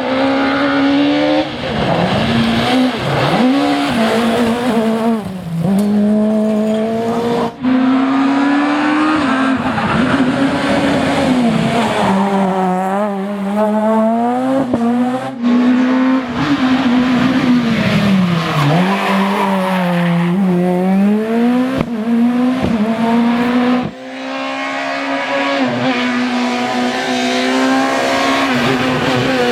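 Super 2000 rally cars' naturally aspirated 2.0-litre four-cylinder engines at high revs, the pitch dipping and climbing again several times as the drivers lift, brake and change gear. The sound cuts abruptly from one car to the next three times.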